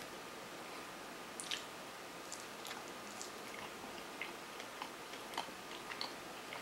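A person chewing a bite of a sprouted quinoa-chia plant-based burger patty, with soft, irregular mouth clicks and smacks starting about a second and a half in.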